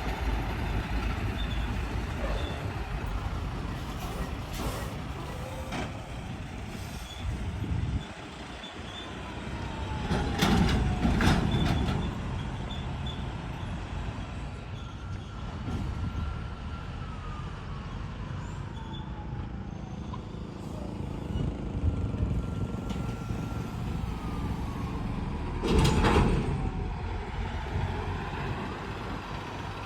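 Road traffic of trucks and buses passing, a steady engine rumble with two louder passes, one about ten seconds in and one near the end.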